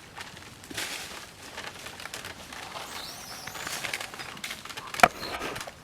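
Rustling with many small crackles and clicks, a faint high chirp near the middle, and one sharp click about five seconds in, the loudest sound.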